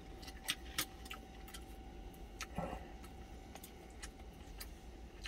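Eating sounds: scattered light clicks of a wooden spoon against a stainless steel food container, with chewing, over a faint steady low hum.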